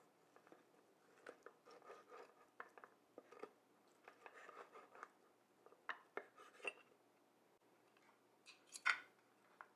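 Carving knife slicing through a roasted rack of lamb on a wooden cutting board, with faint scraping and light clicks of the blade and carving fork against bone and board. A louder clink comes near the end.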